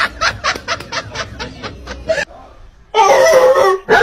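Laughter in quick, even bursts, about five a second, for roughly two seconds. About three seconds in, a loud, drawn-out pitched call follows.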